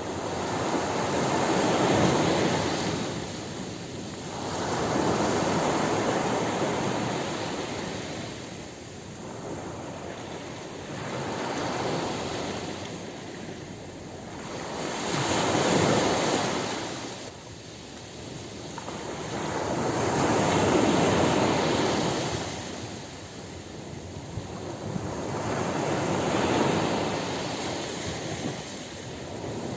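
Ocean surf on a beach: each wave swells to a wash and then fades, one every four to six seconds, over a steady hiss of water.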